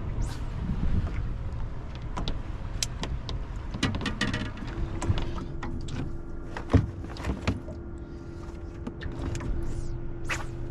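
Gear being handled in a small fishing boat: scattered clicks and knocks over a steady low rumble. A steady hum starts about halfway through.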